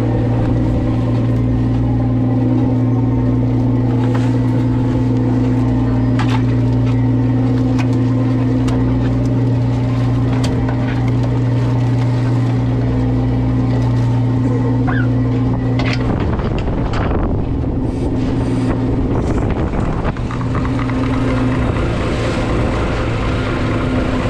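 Steady low drone of the crab boat's engine, with scattered knocks and rattles as a wire Dungeness crab pot is handled and its crabs are shaken out onto the sorting table. About two-thirds of the way through, the drone breaks up and then comes and goes.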